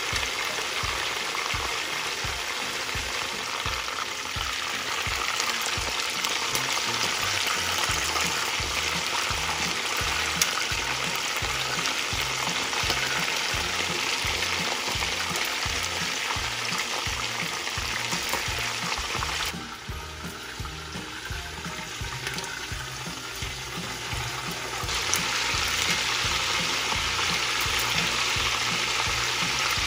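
Unbreaded chicken pieces frying in hot oil, a steady dense sizzle. The sizzle drops noticeably for about five seconds past the middle, then comes back at full strength.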